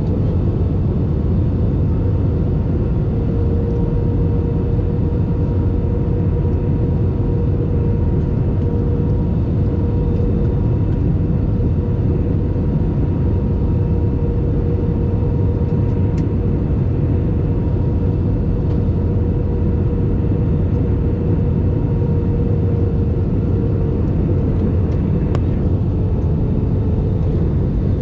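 Steady cabin noise of a jet airliner in flight: a low, even rushing of engines and airflow with a faint steady hum over it.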